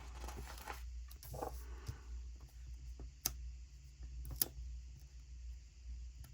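Quiet handling of planner stickers and paper: faint rustling in the first second or so, then two sharp clicks about three and four and a half seconds in, over a low steady hum.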